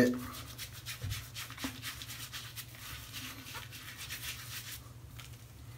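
Thick shaving-soap lather being worked over the face, a quiet, continuous run of fine wet crackling and squishing.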